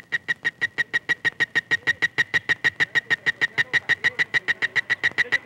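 A rapid, even series of short high-pitched pulses, about eight a second, getting gradually louder.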